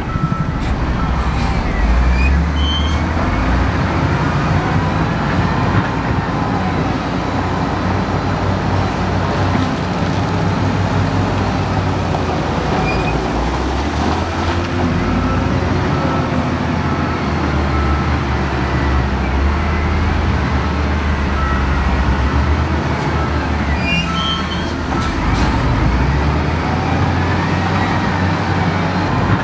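Diesel engines of heavy earthmoving machines working, running steadily and revving up and down under load, with a few light knocks.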